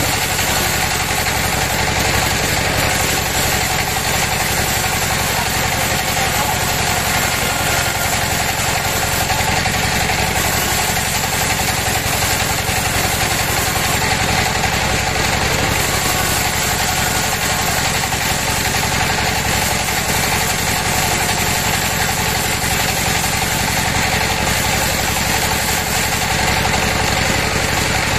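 Band sawmill running steadily, its blade cutting lengthwise through a large teak log.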